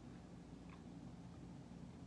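Near silence: room tone with a low steady hum and one faint tick a little under a second in.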